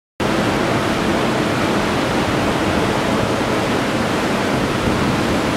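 Ocean surf breaking on a beach: a steady, unbroken rush of noise that cuts in abruptly just after the start.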